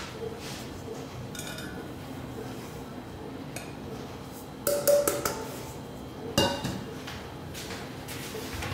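Kitchen dishes and utensils clinking and knocking: a quick cluster of sharp clinks with a short ring about halfway through, and another single clink about a second and a half later.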